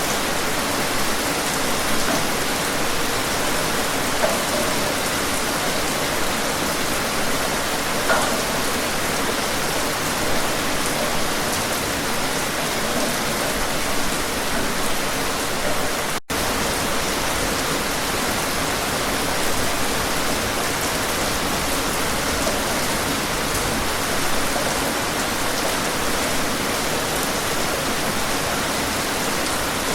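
Steady, dense rainfall hiss with a few slightly louder individual drops, cut by a split-second gap about halfway through.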